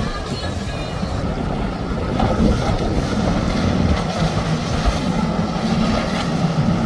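Outboard engines of a center-console boat running at speed: a steady drone that grows louder from about two seconds in, with rushing water from the hull's spray.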